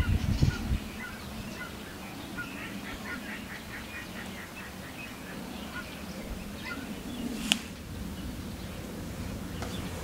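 Wetland birds calling: scattered short high chirps throughout, with a quick run of evenly spaced chirps about three to four seconds in. Low thumps in the first second, and a single sharp click about seven and a half seconds in.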